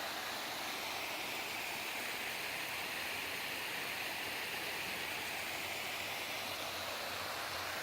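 Small waterfall splashing, a steady even rush of falling water.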